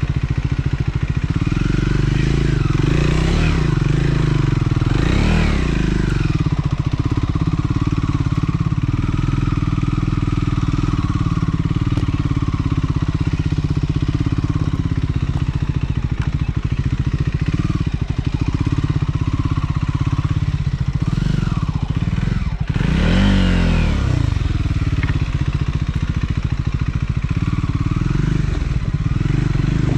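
Triumph Scrambler 400 X's single-cylinder engine running under way, its revs rising and falling several times, most sharply just after a brief dip about two-thirds of the way through.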